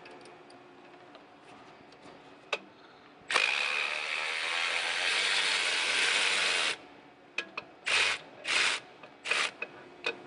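A ratchet clicking rapidly for about three and a half seconds as it runs off one of the nuts holding the turbocharger to the exhaust. Then come three short bursts of clicking.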